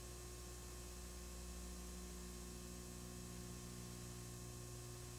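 Faint steady electrical hum at several low pitches with a light hiss underneath; no other sound.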